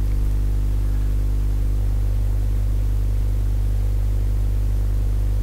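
Steady low electrical hum and buzz, the mains-hum pattern of a ground loop or interference in the recording chain, with a faint hiss underneath.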